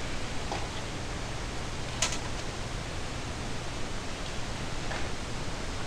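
Steady hiss and low hum of a desktop computer running, with one short click about two seconds in.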